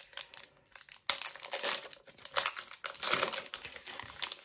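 Foil booster-pack wrapper crinkling in irregular bursts as a trading-card pack is torn open by hand. The crinkling starts suddenly about a second in.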